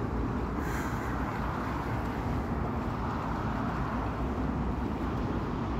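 Steady wind blowing across the microphone, with small lake waves washing against the shore rocks.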